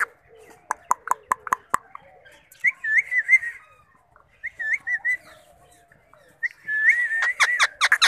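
Indian ringneck parrot making short, wavering whistles, three times, after a quick run of sharp clicks about a second in; near the end the last whistle runs into a burst of rapid clicking chatter.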